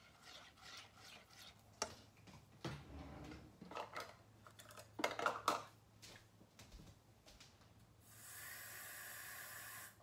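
Silicone spatula stirring and scraping a sugar-and-sauce marinade in a nonstick saucepan, in uneven strokes that stop after about six seconds. Near the end comes a steady hiss lasting about two seconds.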